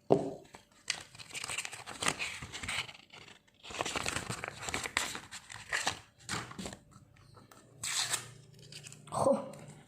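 Packaging being torn open and crinkled by hand: irregular crackling and rustling with a few sharper clicks.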